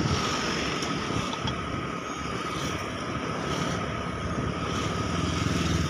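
Motorcycle running at riding speed with steady wind and road noise, and traffic passing close alongside.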